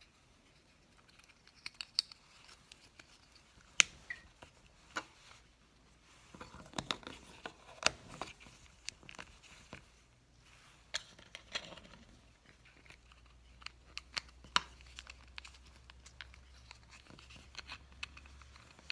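Small plastic clicks, taps and rustling as a Honda key fob is put back together by hand, its parts fitted and pressed into the shell. Sharp clicks come at scattered moments, with a stretch of rustly handling about a third of the way in.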